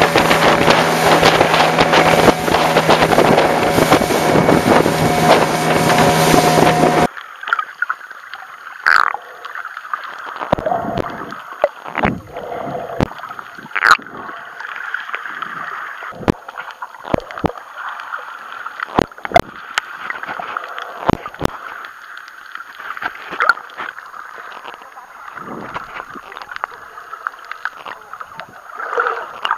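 Loud rushing noise with a steady low hum while the camera housing is at the water surface, cut off abruptly about a quarter of the way in as it goes under. Then muffled underwater sound through the waterproof housing, with scattered sharp clicks and knocks.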